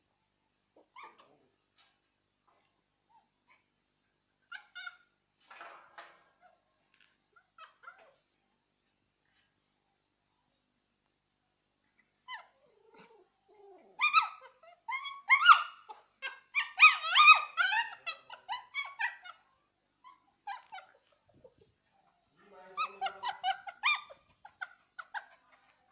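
Young dogs yipping and whining during play, in high-pitched bursts: a loud run from about halfway through and a shorter one near the end, with only faint sounds before.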